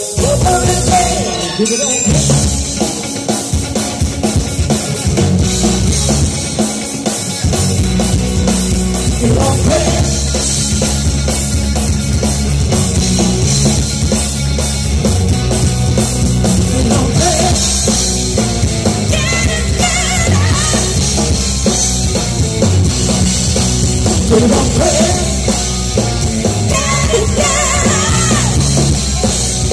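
Live rock band playing loudly through a PA: electric guitars, keyboards and a drum kit, with singing at times. Heard from among the audience at an open-air concert.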